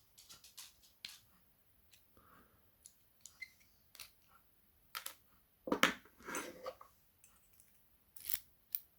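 Scattered small metallic clicks, ticks and scrapes of a padlock's parts and small hand tools being worked during disassembly, with a louder clatter of knocks about six seconds in and another click-burst near the end.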